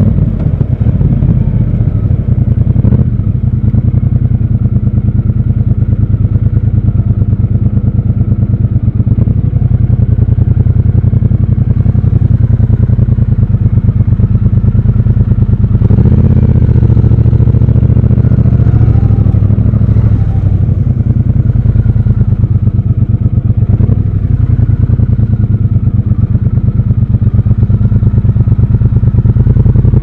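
Triumph Scrambler 1200 XC's 1200 cc parallel-twin engine running at low revs while the bike rides slowly in city traffic. The revs rise briefly about halfway through, then settle back to a steady low pulse.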